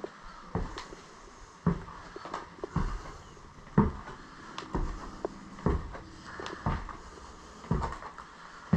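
Footsteps going down an old staircase and onto a debris-strewn floor: heavy steps about once a second, with small clicks and scrapes of debris underfoot between them.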